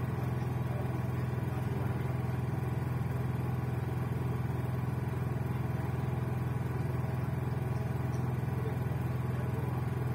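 A steady, unchanging low hum.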